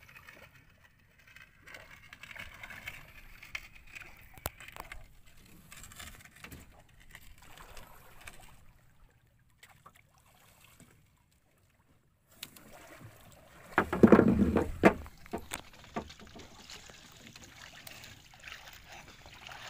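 Water lapping and sloshing around small outrigger boats, with scattered light knocks. About fourteen seconds in there is a loud rushing burst that lasts about a second.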